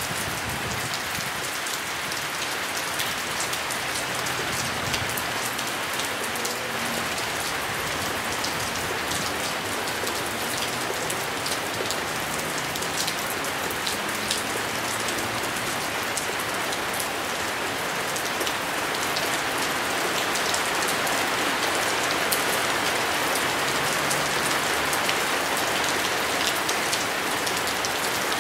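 Steady rain falling, with many single drops ticking sharply close by; it grows a little heavier past the middle.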